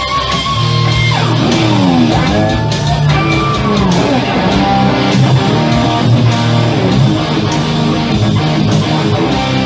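Electric guitar played through an amplifier: a held note with vibrato, then the pitch swoops down and back up twice, followed by a run of shorter lead notes over steady low notes.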